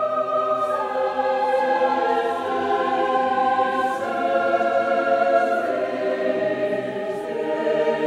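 Choral music: a choir singing slow, sustained chords that change every second or two.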